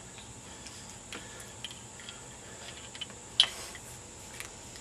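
Scattered light clicks and taps from handling parts and tools, with one sharp click about three and a half seconds in, over a steady high-pitched chirring of crickets.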